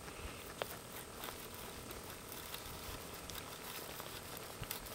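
Quiet background: a faint steady hiss with a few small, sharp clicks scattered through it, four or so in all.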